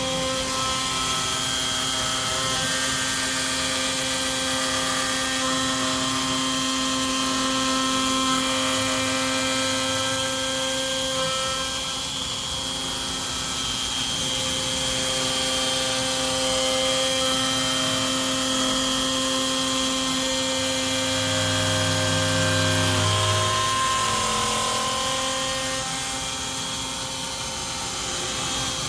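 MillRight Carve King CNC router running a test cut, its spindle whining steadily as the bit cuts into a board. A lower hum rises briefly about three quarters of the way through.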